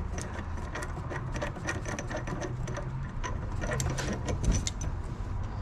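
Quick, irregular metallic clicking and ticking as a bolt is turned by hand into a car's transmission mount, over a low steady hum.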